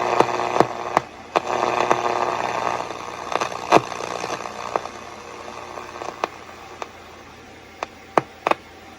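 Shortwave radio receiver hissing and crackling while tuned across an empty band, with no station coming through. The static has scattered sharp clicks; it is louder for the first few seconds, then drops and grows fainter.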